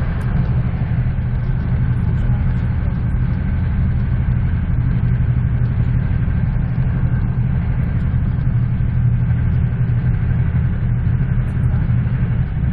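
Steady rumble of a passenger coach running at speed, heard from inside the carriage: wheels rolling on the rails with a deep, even running noise and a faint steady high tone above it.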